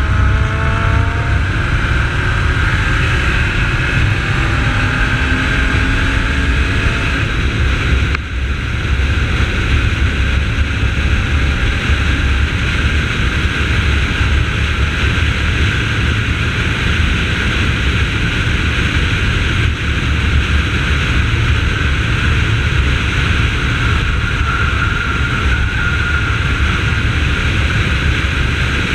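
Holden VY Commodore's 3.8-litre V6 engine pulling hard on a race track under heavy wind rumble. The engine note rises in the first seconds and again a few seconds later, dips briefly about eight seconds in, then holds a steady drone at speed.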